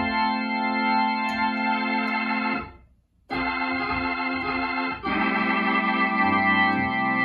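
Nord Electro 3 stage keyboard on an organ sound, playing held hymn chords that sustain without fading. The chord breaks off to a brief silence a little under three seconds in, then resumes. A new, fuller chord follows about five seconds in.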